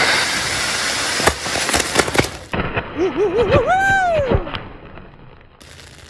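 A row of small fountain fireworks hissing steadily as they spray sparks, with a few sharp cracks. After a sudden cut about two and a half seconds in, a warbling whistle rises and falls several times and ends in one long arching tone, then the sound dies away.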